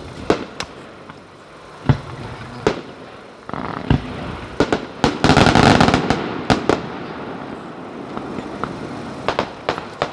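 Aerial fireworks going off: scattered sharp bangs throughout, with a dense, loud crackling barrage about halfway through.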